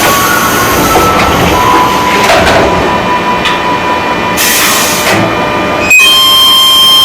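JR 205 series electric commuter train (KRL) running, its rumble carrying several steady whining tones: the unusual sound whose cause the uploader asks about. About six seconds in the sound jumps suddenly louder, with a steady high whine over it.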